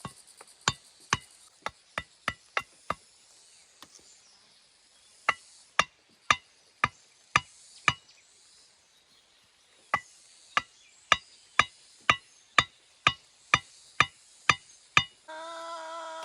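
A hammer driving nails: sharp strikes about two a second, in three runs with short pauses between them. Near the end comes a short, steady pitched call or tone lasting about a second.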